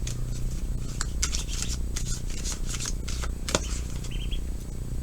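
Tarot cards being shuffled and handled: an uneven run of soft snaps and rustles over a steady low hum.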